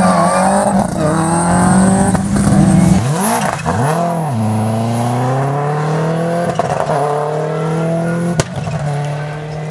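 Subaru Impreza rally car's turbocharged flat-four engine at steady high revs on the approach, then blipped through quick downshifts as it brakes for a tight left junction about three seconds in. It then accelerates away with the pitch rising steadily, a sharp crack near the end, and fades as it pulls off.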